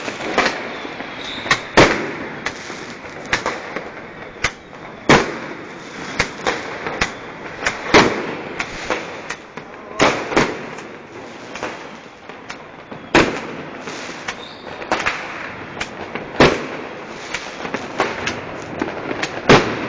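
Fireworks and firecrackers going off: loud bangs every few seconds with smaller pops in between, over a constant crackling hiss.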